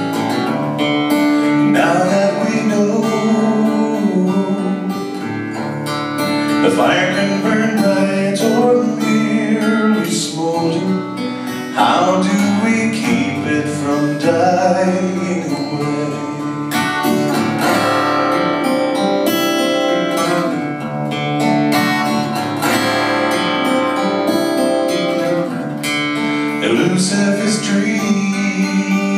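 A man singing live to his own acoustic guitar accompaniment, the guitar played steadily throughout.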